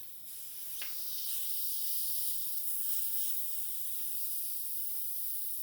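Compressed CO2 hissing out of a CO2 cartridge inflator into a bicycle inner tube, released by backing off the screwed-in canister. The hiss starts suddenly and holds steady, with a short click about a second in.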